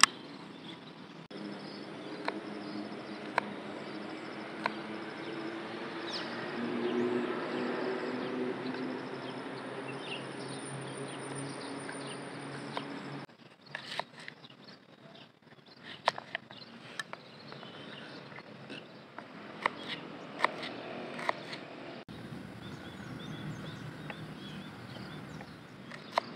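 Small knife slicing garlic cloves and shallots on a small wooden cutting board: sharp taps of the blade meeting the board, about once a second at first, later more scattered. A steady outdoor background hum lies underneath.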